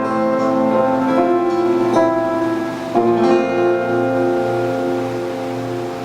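Instrumental music led by plucked acoustic guitar notes. Longer held notes come in about three seconds in, and the music grows quieter near the end.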